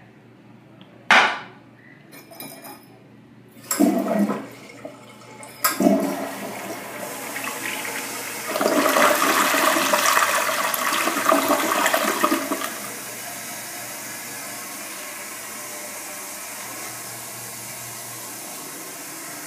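Gerber Avalanche toilet flushing: a sharp click about a second in and a few knocks, then water rushing loudly through the bowl for several seconds, dropping to a steady, quieter hiss of water refilling.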